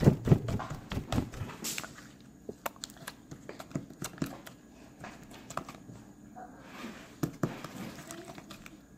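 Clear orange slime with small foam beads being squished and poked by hand, giving irregular wet clicks and pops, loudest in the first second or so.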